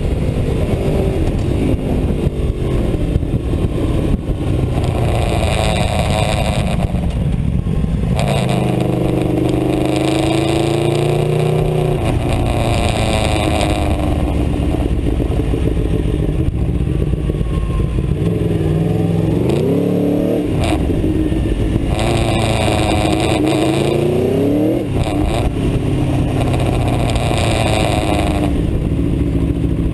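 Aprilia Tuono V4's V4 engine under hard riding, heard from onboard. The revs rise and fall several times: they drop away for corners, climb again on the exit, and break briefly at quick gear changes.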